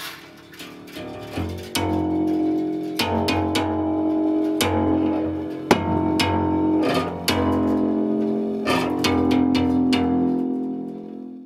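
Bass strings of an old Sohmer & Co. upright piano struck repeatedly with a drumstick, each hit ringing on in sustained low, pitched notes that change from hit to hit. The sound cuts off abruptly at the very end.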